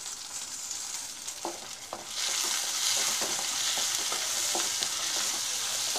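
Onions, green chillies and tomatoes sizzling in hot oil in a metal kadai while a wooden spatula stirs them, knocking against the pan now and then. The sizzling grows louder about two seconds in.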